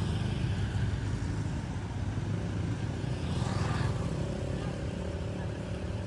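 Street traffic: a steady low rumble of road noise, with a vehicle passing by, its sound swelling and fading about three to four seconds in.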